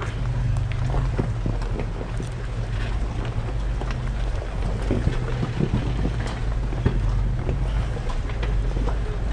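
Off-road vehicles crawling slowly over a rocky trail: a steady low engine drone with scattered clicks and knocks from rocks under the tyres.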